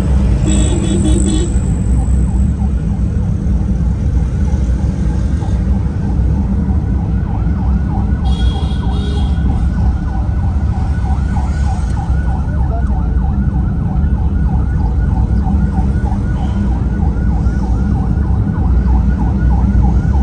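Steady engine and road rumble from a moving car, with a fast yelping siren rising and falling several times a second that starts about six seconds in and keeps going.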